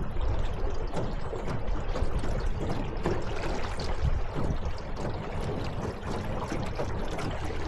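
Water splashing and trickling against a small boat's hull, an uneven, continuous sloshing.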